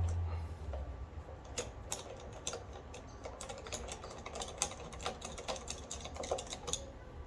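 Irregular light clicks and taps of hand tools and metal bolts being handled while unbolting a lawn mower's housing, a few a second. A low hum dies away at the very start.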